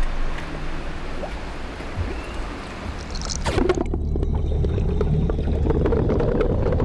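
Water sloshing around divers at the surface of a spring pool. About three and a half seconds in it changes abruptly to muffled underwater sound: a low rumble with a steady hum and many small clicks and gurgles from scuba divers' bubbles.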